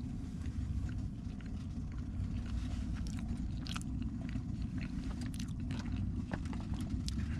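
A person chewing food, with short clicks and scrapes of a spoon in a plastic MRE pouch of chili, over a steady low rumble.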